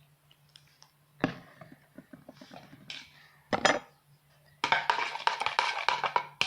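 A large spoon clinking and scraping against a bowl while stirring slime mixture: a few separate knocks at first, then fast, continuous stirring from about two-thirds of the way in.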